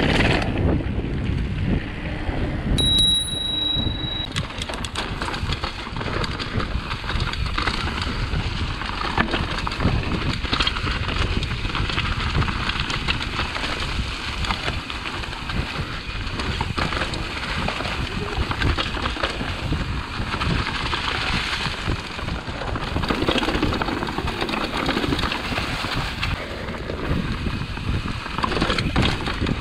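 Mountain bike riding fast over rocky dirt singletrack: tyres on dirt and rock, with the bike's chain and frame rattling steadily. A brief high ringing tone sounds about three seconds in.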